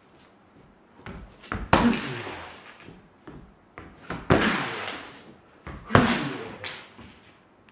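Feet landing and stamping on a wooden stage floor: three heavy thuds, each ringing on in the room, with lighter footfalls between.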